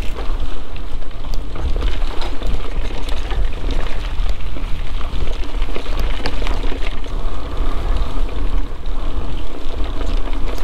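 Mountain bike rolling along a dirt forest trail: continuous tyre noise on the ground with many small clicks and rattles from the bike, over a steady low rumble.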